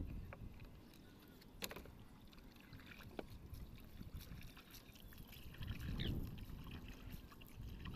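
Faint water sounds of a narrow canoe being pushed along with a bamboo pole: swishes of the pole and water moving at the hull, with a couple of light knocks.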